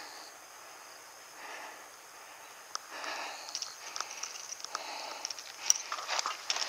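Close handling noise: rustling of a cloth and a run of small clicks and taps as a hooked largemouth bass is gripped and the minnow lure's hooks are worked out of its mouth.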